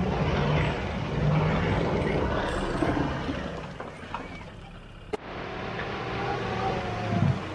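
A 4x4 truck's engine running on the off-road course, fading somewhat about four seconds in. A single sharp click comes just after five seconds, and the engine sound returns.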